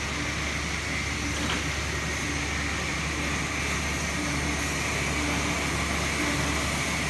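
Steady hum and hiss of factory machinery, with a low whine that keeps switching on and off.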